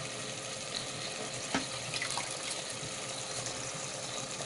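Mutton and masala sizzling steadily in a pressure cooker on the stove, an even soft hiss with a couple of faint light clicks.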